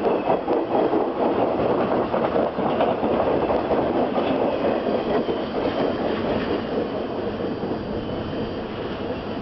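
Intermodal freight train of truck trailers on flatcars rolling past, its steel wheels clattering rapidly over the rail. The noise eases off toward the end as the last cars go by and the train pulls away.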